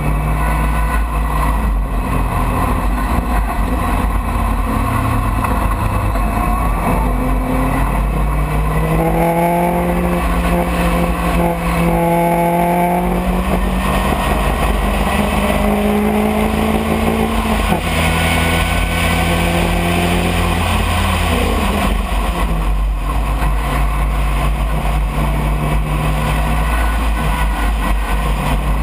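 Open-cockpit racing car's engine heard onboard at speed on a circuit, its note rising and falling several times as it accelerates through the gears and lifts for corners, over a constant rush of wind and road rumble.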